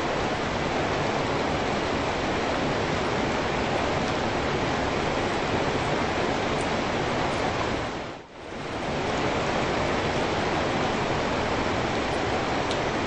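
Steady rain falling, an even rushing hiss. About eight seconds in it briefly fades almost away and swells back.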